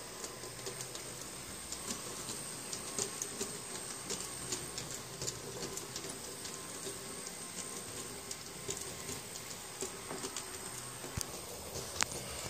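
Two Piko G-scale model steam locomotives, a BR 24 and a BR 64, running on brass track: a steady motor and gear hum with a continuous patter of small clicks from the wheels on the rails. One sharper click comes near the end.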